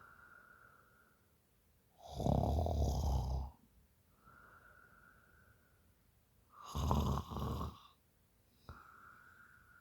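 A woman snoring in a heavy sleep after drinking alcohol: two loud, fluttering snores about four and a half seconds apart. Between them each breath carries a faint, steady whistle.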